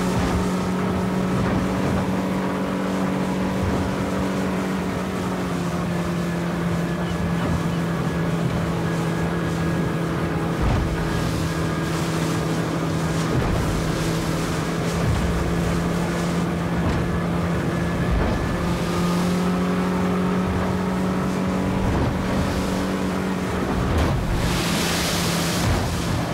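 Motorboat engine running steadily at speed, with the rush of the hull through choppy water and wind, and a brief louder hiss near the end.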